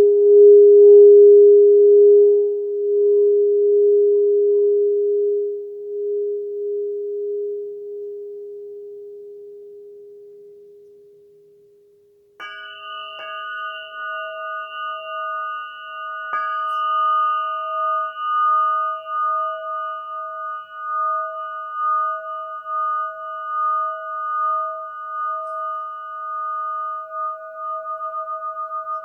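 Quartz crystal singing instruments ringing: one low, pure tone fades out over about twelve seconds. A second crystal instrument is then struck, struck again a few seconds later, and rings on as a higher tone with overtones that pulses and wavers.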